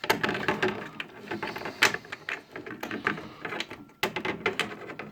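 Irregular clicks, knocks and rattles of plastic and metal as a cable plug is worked back into its socket in a combi boiler's control compartment, with a couple of sharper knocks near the middle and about four seconds in.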